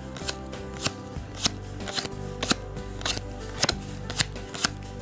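Cards being thumbed through one at a time in the hand, each card edge giving a crisp snap, about two a second, over steady background music.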